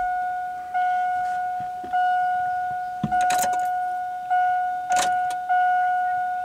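Dashboard warning chime of a 2002 Chevy Silverado with the key switched on: a single-pitched electronic ding repeating about once a second, each ding fading before the next. A couple of brief rattles come in around three and five seconds in.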